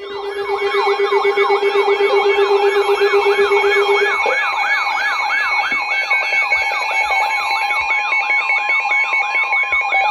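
Layered electronic emergency-alert siren tones: fast falling sweeps repeating about three times a second over several steady tones. A low steady tone drops out about four seconds in. They mark the start of a tornado warning alert.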